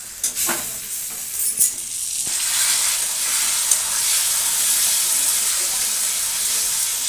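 Spiced onion-tomato masala sizzling in hot oil in a wok as a metal spatula stirs and scrapes it, the dry spice powders being fried into the paste. A few scrapes of the spatula come early; the sizzle grows louder about two seconds in and then holds steady.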